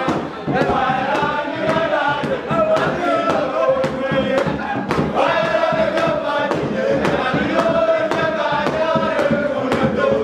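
A group of voices singing and chanting a Dinka dance song together, over a steady sharp beat about three times a second.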